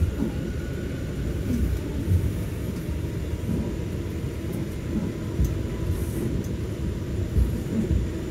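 New York City subway car running, heard from inside the car: a steady low rumble of wheels on rails and running gear, with a few heavier thumps, the loudest about two seconds in and near the end.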